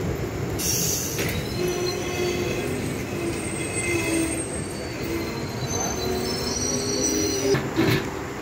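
Vibhuti Superfast Express passenger train pulling into the platform, its wheels and brakes squealing in several high, wavering tones over a steady rumble. Two loud knocks sound near the end.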